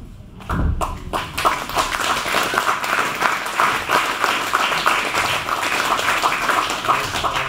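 Audience applauding, a dense patter of many hands clapping that builds over the first second.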